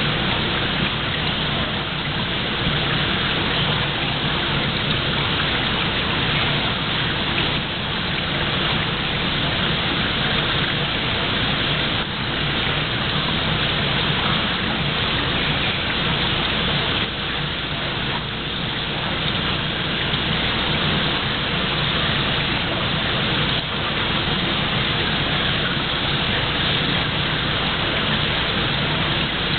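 Steady splashing of running water, with a low hum beneath it.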